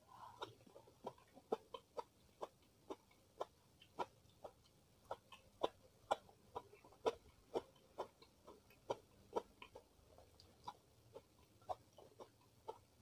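Close-miked chewing of crisp food, a steady run of short crunching clicks at about two a second.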